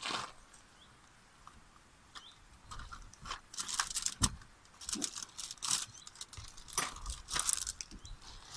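Plastic food packaging crinkling and rustling in irregular bursts as it is handled, with one sharp knock about four seconds in.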